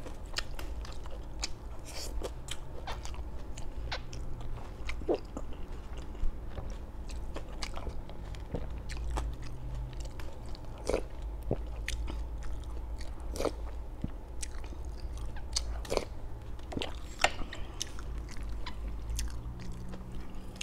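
Close-miked eating: chewing and biting of crispy fried food, with irregular sharp crunches and clicks scattered throughout over a steady low hum.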